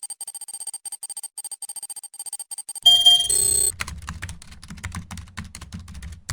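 A fast, even run of high electronic ticks, then a short loud electronic sound effect about three seconds in, followed by rapid irregular clicking of computer keyboard typing over a low hum.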